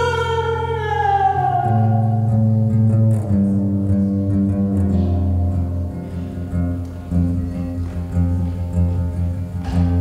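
Slow live acoustic guitar music. A long held note slides down in pitch and fades in the first couple of seconds, then low notes ring on under slow plucked notes, with a sharper strum near the end.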